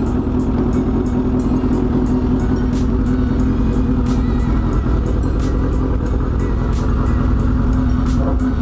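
Suzuki GSX-R750's inline-four engine running steadily at a fairly even speed, just after its secondary throttle valve actuator was repaired, with no fault light on.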